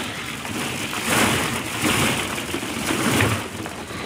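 Plastic ball-pit balls rattling and clattering against each other as a baby clambers through them, in irregular surges that grow louder about a second in.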